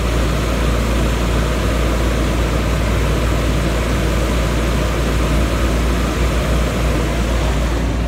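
Round cooling tower running: a steady rush of water falling from the spinning sprinkler head onto the fill, over the low hum of the tower fan.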